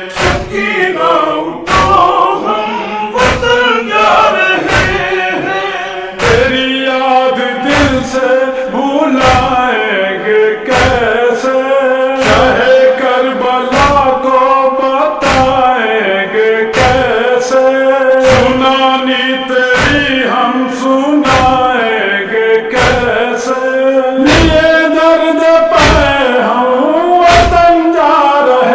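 Male voices chanting an Urdu nauha, a Shia lament, with no instruments. Regular hand-beaten thumps keep time, about one every three-quarters of a second, as in matam (chest-beating).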